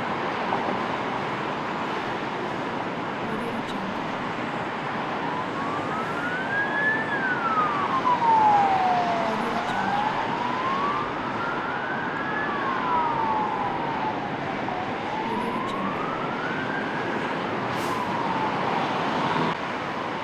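Emergency vehicle siren wailing, slowly rising and falling every few seconds, over a steady wash of city traffic noise. The siren starts about a quarter of the way in and stops shortly before the end.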